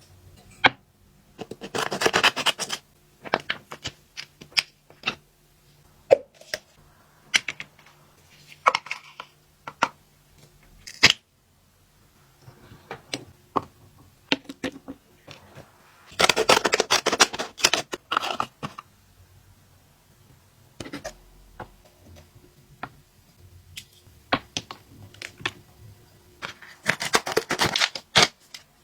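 Objects being handled: scattered sharp clicks and taps, with three bursts of rustling or scraping of a second or two each, near the start, about halfway through and near the end.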